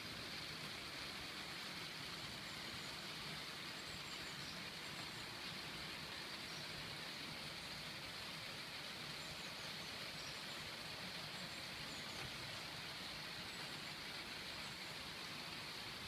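Steady rain, an even hiss of falling water with no single drops standing out.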